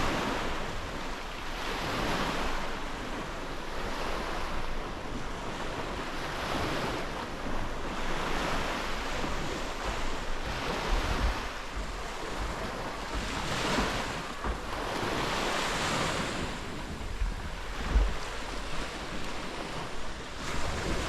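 Surf washing up a sandy beach, rising and falling every few seconds, with wind buffeting the microphone in a few low thumps, the loudest near the end.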